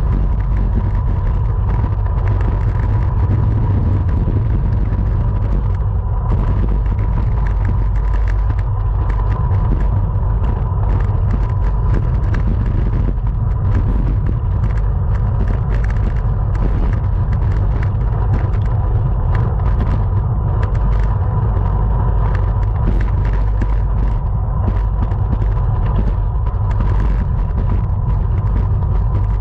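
Wind buffeting the microphone of a camera riding along in a bicycle criterium race, a steady heavy low rumble with a thin steady high tone above it and scattered small clicks.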